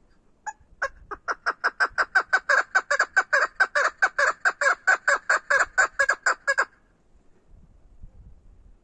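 Chukar partridge hen calling: a rapid, even run of clucking notes, about five a second, that builds in loudness over the first second and then stops abruptly.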